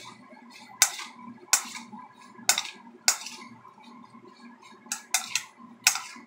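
A metal spoon clinking against a small ceramic bowl as cooked silkworms are stirred in it: about eight sharp, separate clinks at uneven intervals, several close together near the end.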